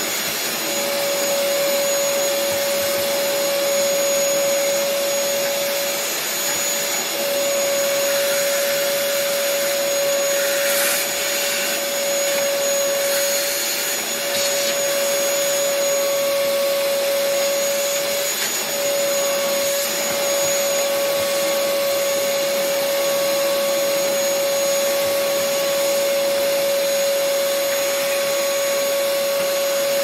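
Vacuum cleaner running with a steady whine, its metal wand sucking dirt and dust out of a refrigerator's drip tray and the compartment around the compressor. The whine dips briefly a few times.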